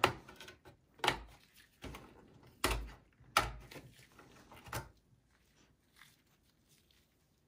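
Sharp plastic clicks and knocks of a desktop motherboard's DIMM slot latches being pressed open and a RAM module being pulled out, about five separate clicks over the first five seconds.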